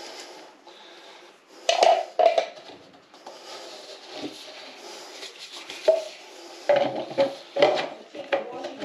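A metal snake hook and a PVC pipe knocking and clattering as they are handled on a carpeted floor to tube a tiger snake, with a pair of sharp knocks about two seconds in and a quick run of knocks near the end as the pipe is tipped upright. Softer rubbing and rustling lies in between.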